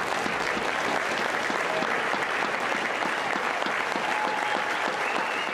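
Spectators applauding steadily: a dense patter of many hands clapping at the end of a badminton match.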